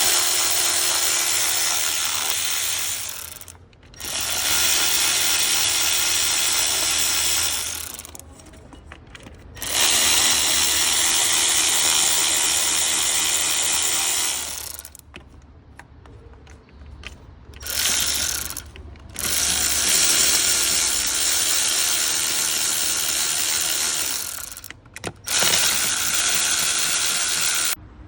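Power ratchet running in a series of trigger bursts, most a few seconds long with a couple of short blips near the end, stopping abruptly between them.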